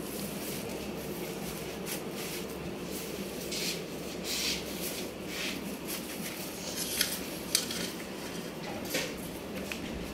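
Goat feeding from a metal bowl: a few short scrapes and rustles, then clinks of its head against the bowl, with two sharp clinks about half a second apart, over a steady low background hum.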